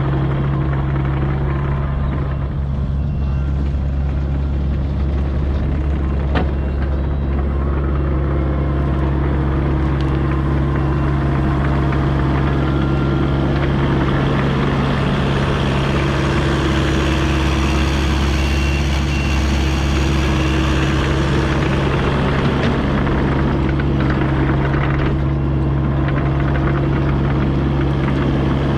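Kubota U55-4 mini excavator's diesel engine running at a steady speed, with a single knock about six seconds in.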